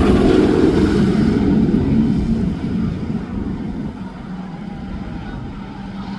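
Fury 325 roller coaster train rushing along its steel track, loud at first, then fading over the next few seconds to a lower rumble.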